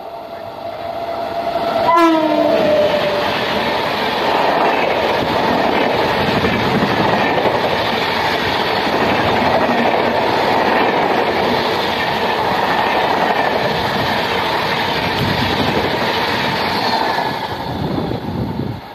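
A Rajdhani Express running through a station at speed: the electric locomotive's horn sounds as it comes past and drops in pitch about two seconds in. Then comes the steady, loud noise of the LHB coaches' wheels and rush of air passing close by, easing off near the end.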